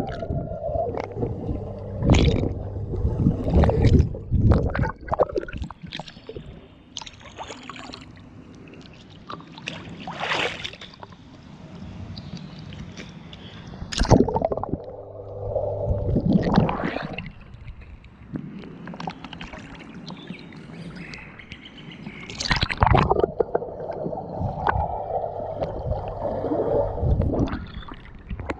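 Swimming-pool water sloshing and gurgling, picked up by a GoPro Hero 6 as it moves underwater and back up to the surface, muffled while submerged, with several louder splashes at irregular moments.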